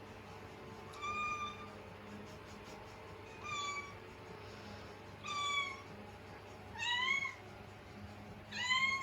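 Scottish Fold kitten meowing five times, high-pitched calls about every one and a half to two seconds, the last ones rising and falling in pitch: a kitten stuck up on a curtain rail, calling because it can't get down.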